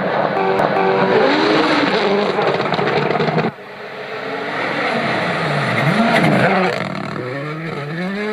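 Rally car engine revving hard, its pitch climbing and falling as it shifts and lifts. About three and a half seconds in the sound cuts suddenly to another stretch, where the engine revs dip and climb again.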